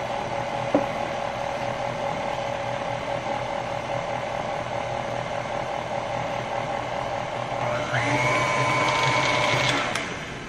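KitchenAid Ultra Power stand mixer's motor and gearing running steadily, beating buttercream frosting in a steel bowl, with a sharp click about a second in. About eight seconds in it grows louder and higher-pitched, then winds down as it is switched off near the end.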